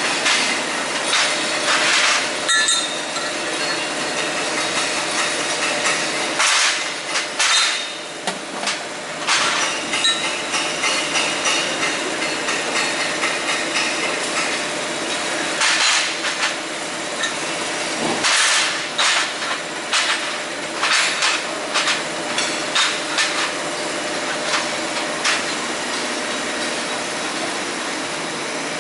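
Welding work: a steady crackling hiss with frequent sharp knocks and clinks of metal scattered through it.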